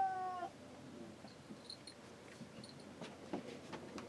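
Cat meowing: the end of a long, drawn-out meow that falls in pitch and stops about half a second in, followed by faint scattered knocks and clicks.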